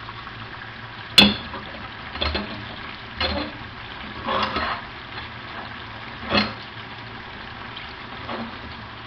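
Chopped onion sizzling in hot oil in a frying pan while a utensil stirs it, with several knocks and clinks against the pan, the sharpest about a second in.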